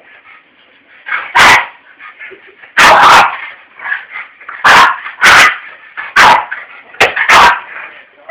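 A pet dog barking in a frenzy: about eight loud, sharp barks in irregular bursts, some in quick pairs, with quieter sounds from the dog between them.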